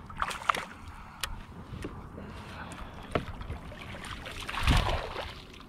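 A hooked largemouth bass being played from a kayak: scattered small clicks and knocks of tackle and hull, then a splash as the fish thrashes at the surface about four and a half seconds in.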